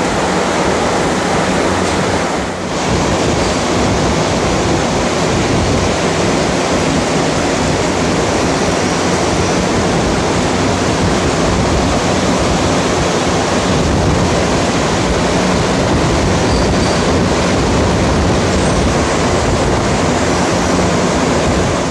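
Dairy barn's shower-and-ventilation cooling system running: a steady, loud rushing with a low hum underneath.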